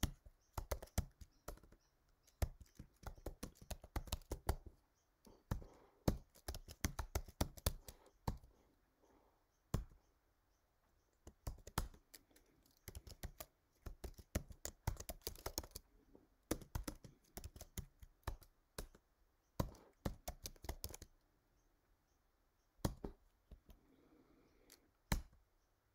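Typing on a computer keyboard: bursts of quick key clicks separated by short pauses, the longest gaps around ten seconds in and again a little past twenty seconds.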